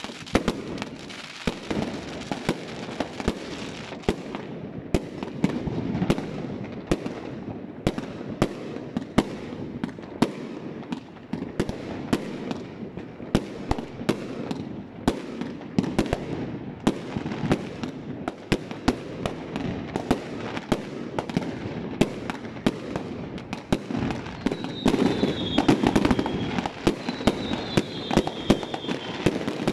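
Fireworks going off from many launch points at once: dense, irregular bangs and crackles of bursting aerial shells and rockets over a steady low din, with two short high whistles near the end.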